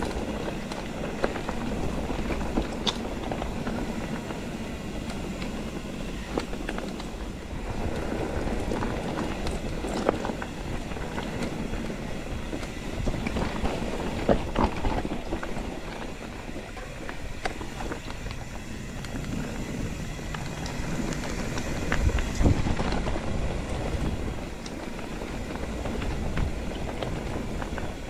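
Mountain bike ridden over rough single track: a steady rumble of the tyres on the dirt, with rattles, clicks and knocks from the bike over bumps, and one heavier thump about two-thirds of the way through.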